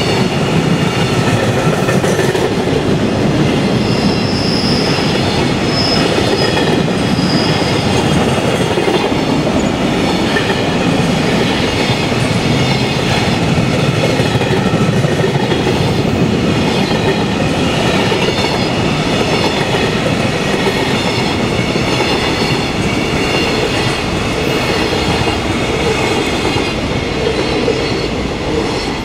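Freight train of container flatcars rolling past at speed, a steady loud rumble and clatter of wagon wheels on the rails, falling away near the end as the last wagons recede.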